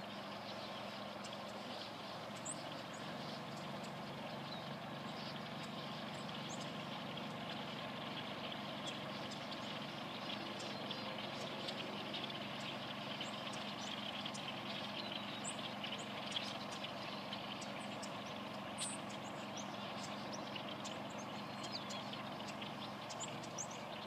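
A huge flock of blackbirds calling all at once, a dense, steady chattering din, with a few sharper single calls standing out about two-thirds of the way through.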